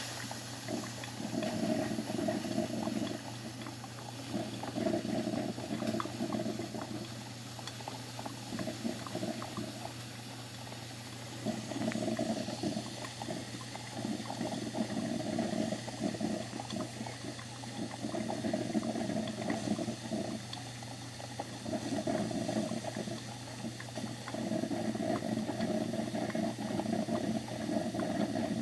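Broken, leaking coffee machine running, its water pump and boiler gurgling in uneven pulses every second or two over a steady low hum.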